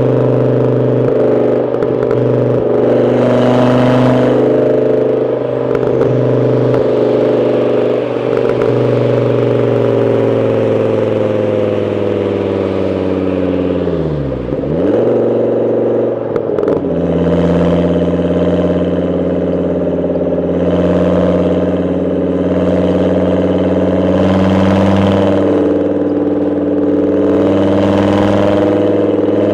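Volvo S70's five-cylinder engine running steadily. About halfway through its pitch sinks sharply, then picks back up a couple of seconds later.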